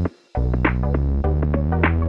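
Background music with a steady beat and held bass notes, dropping out for a moment right at the start.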